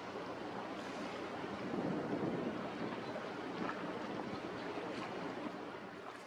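Steady waterside harbour ambience: wind on the microphone and lapping water, with a faint steady low hum under it, swelling a little about two seconds in.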